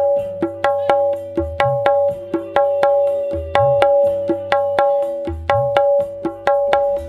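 Percussive music played loudly over a large carnival sound system during a sound check. Quick, regular, clicky strikes ring at a fixed pitch, with a deep bass thump about every two seconds.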